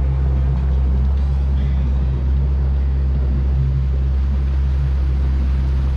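Outboard motor of a bass boat running steadily at low speed: a constant low hum.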